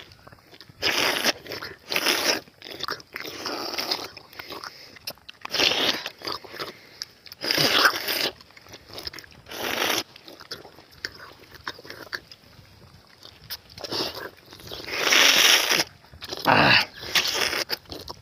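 Close-up eating sounds of tender palmyra fruit (ice apple, nungu): sucking and biting as the soft jelly is eaten straight from the cut fruit held to the mouth. The sounds come in irregular bursts every second or two.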